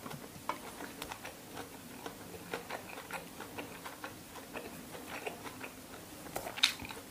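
Close-miked chewing of a mouthful of koi tap wan, spicy raw pork-liver salad: a run of small mouth clicks, a few a second, with a sharper smack near the end.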